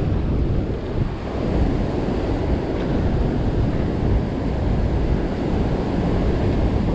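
Steady rush of white water churning in the river below, with wind buffeting the microphone.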